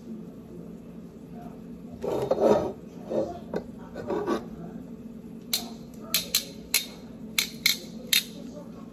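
A few rough scraping sounds, then a quick run of about seven sharp clicks from metal kitchen tongs snapping open and shut.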